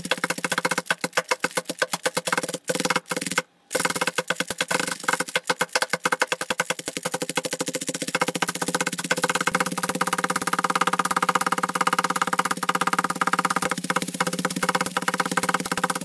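Bubble wrap popping in fast, dense runs of sharp pops, with a brief break about three and a half seconds in, over background music with steady held tones.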